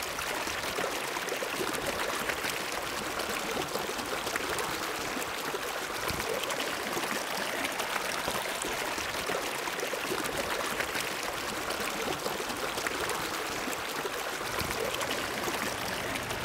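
Shallow river water flowing and trickling steadily. About two seconds before the end, a pickup truck's low engine hum comes in underneath.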